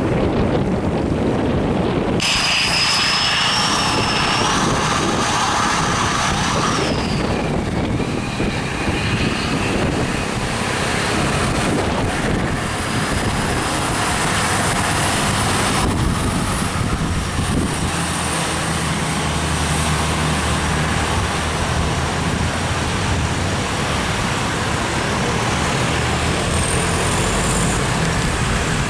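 Heavy diesel trucks passing as they climb a bend: continuous engine and tyre noise, with a high whine that rises and falls a few seconds in. From about two-thirds of the way through, a deep, steady engine drone.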